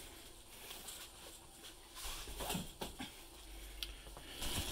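Faint rustling and light handling of a replica belt's clear plastic wrapping, mostly quiet, with a few soft crinkles and taps in the second half.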